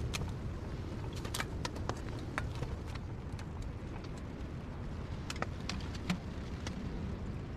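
Steady low wind rumble, with irregular sharp clicks and crackles scattered through it.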